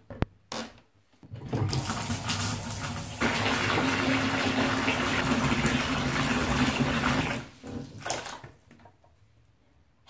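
Bathtub tap running, water pouring into the tub in a steady rush for about six seconds, with a steady low hum joining partway through. A couple of clicks come before it, and the flow stops and tails away near the end.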